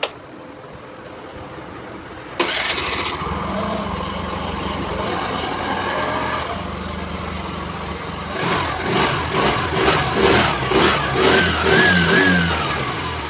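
Scooter engine started about two and a half seconds in, just refilled with fresh engine oil. It settles into a steady idle, then is blipped up and down in quick surges of about two a second near the end.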